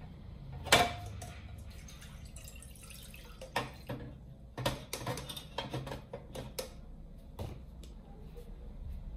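Water poured from a plastic cup into a ceramic-lined saucepan, splashing into the pot, with a sharp knock about a second in and scattered clicks and taps after.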